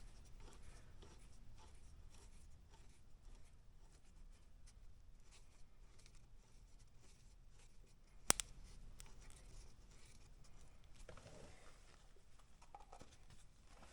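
Faint handling sounds of work on a motorcycle's front brake caliper: light scraping and small clicks, with one sharp click about eight seconds in.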